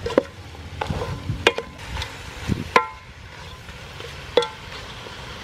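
Wooden spatula stirring chunks of raw chicken in curry paste in a large metal pot, knocking against the pot's side several times; a few of the knocks ring briefly like struck metal.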